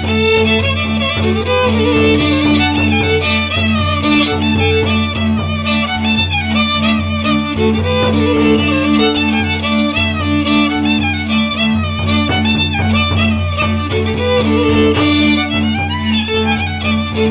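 Polish oberek dance music: a fiddle plays a busy melody in quick triple time over steady, sustained low notes.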